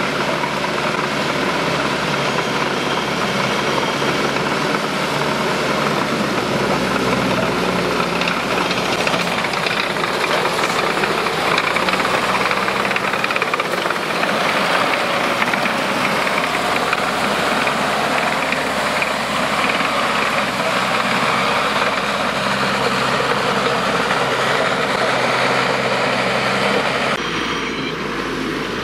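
Engine and running gear of a 5-ton tracked all-terrain vehicle, steady and loud as it drives along a flooded forest track and passes close by.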